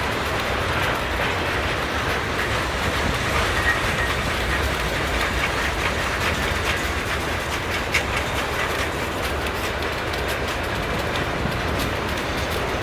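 Freight train of steel-coil cars rolling past with a steady rumble, wheels clacking now and then over rail joints.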